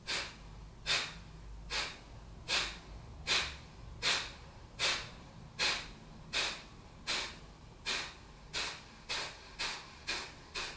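Kapalabhati breathing: a man's sharp, forceful exhalations through the nose, pushed out by contracting the stomach, each a short hiss with the inhale barely heard. They come at a little over one a second at first and quicken to about two a second near the end.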